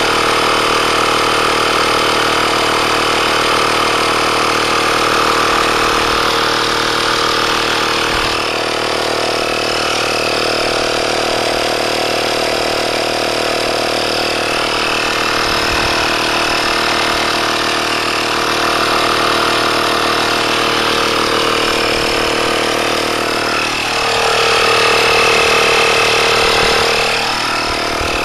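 Small electric air compressor of a tire-sealant inflator kit running steadily while it pumps sealant and air into a flat tractor tire. About 24 seconds in, its pitch sags and it gets louder for a few seconds, then it picks back up.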